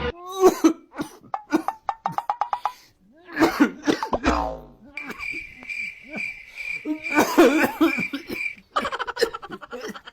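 Repeated coughing among short knocks and clicks, with a steady high tone holding for about three and a half seconds in the middle.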